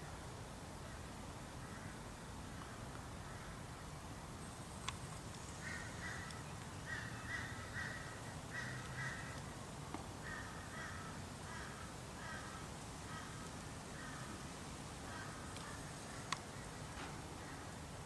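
A bird calling in a run of short repeated notes, several a second, from about six seconds in to about fourteen seconds in. Two sharp cracks, one about five seconds in and one near the end, from the sulphur-crested cockatoo's beak biting a macadamia nut shell.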